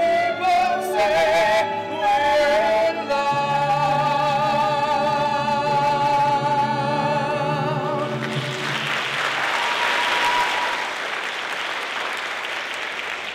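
A man and a woman singing the end of a show-tune duet with vibrato, holding a final note together, then audience applause breaking out about eight seconds in and running on.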